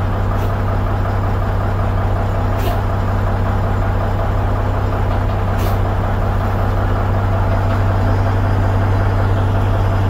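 Peterbilt semi truck's diesel engine idling steadily with a low hum. Three short, faint high ticks come through over the first six seconds.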